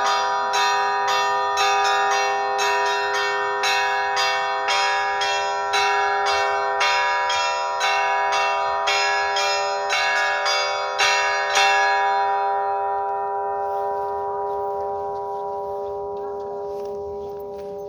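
Church bells struck in quick succession, about two strokes a second, the tones overlapping into a steady peal. About twelve seconds in the striking stops and the bells ring on, slowly dying away.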